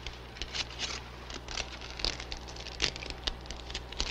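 Aluminium foil crinkling and crackling in short irregular bursts as hands peel it off a wrapped head, over a low steady hum.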